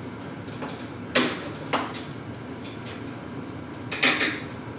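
Sharp knocks and clinks of a wrench and hardware on a garage door track's mounting brackets as the nuts are fitted and snugged up: one a little after a second in, another just before two seconds, and a louder double knock near the end.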